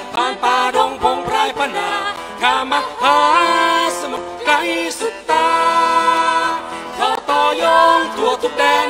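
A song performed with a singing voice over band accompaniment, including a long held sung note about halfway through.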